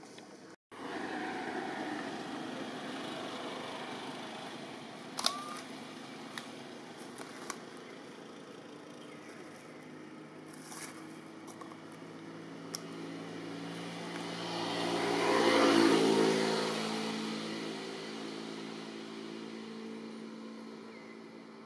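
A motor vehicle passing by: its engine swells to its loudest about two-thirds of the way through, then fades away. A few sharp clicks sound around a quarter of the way in.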